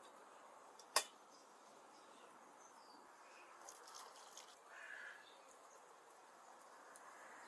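Metal lid of a stainless steel teapot clinking once, sharply, about a second in, then a few lighter clicks and taps around four seconds in as the lid is handled, over a faint steady outdoor background.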